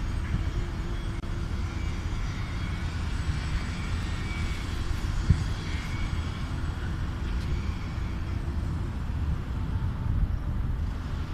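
Wind buffeting a smartphone's microphone, heard as a steady, uneven low rumble with faint higher tones over it.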